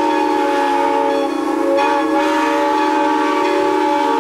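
Steam locomotive whistle blowing one long, steady blast as the departure signal after the "All aboard" call.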